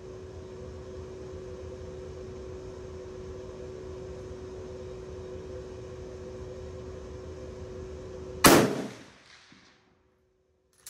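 One rifle shot from a Swiss K11 carbine firing 7.5×55mm Swiss, about eight and a half seconds in, its report echoing and fading over about a second. Before the shot there is a steady background hum; after the echo the sound cuts off suddenly.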